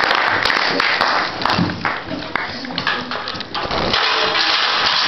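Audience applause tapering off, with knocks and thuds from stage props being moved across the floor and a few voices.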